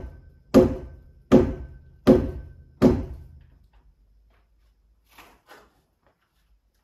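Hammer blows on a large solid timber beam, knocking it into its seat: four heavy strikes about three-quarters of a second apart, each ringing briefly, then two faint taps near the end.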